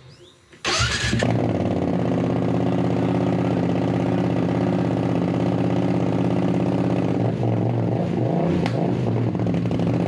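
BMW F900R's parallel-twin engine breathing through a newly fitted SpeedPro Cobra SPX slip-on exhaust, cranking and catching about a second in, then idling steadily, briefly unsteady a few seconds before the end.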